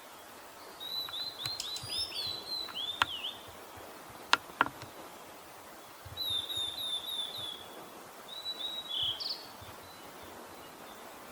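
Blue-and-white flycatcher calling: three runs of quick, high chirping notes, with a few sharp clicks between the first and second run.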